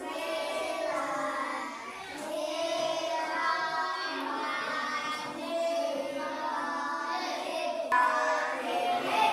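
Children singing a song, with notes held and gliding between pitches.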